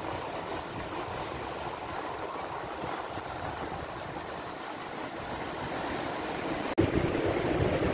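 Surf breaking and washing onto a sandy beach, a steady rushing. About seven seconds in it cuts out for an instant and returns louder.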